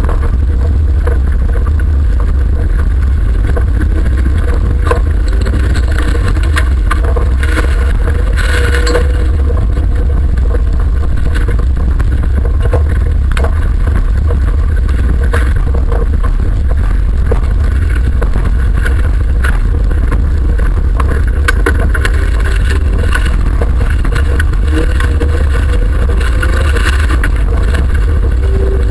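Autocross car engine running hard, heard from inside the cabin as a loud, steady low rumble, with scattered knocks and clatters from the car running over the dirt track.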